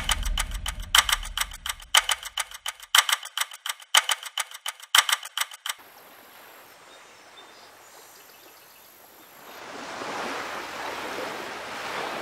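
Camera shutter clicking in quick runs of sharp clicks, stopping a little under six seconds in. Near the end a soft rushing noise swells up.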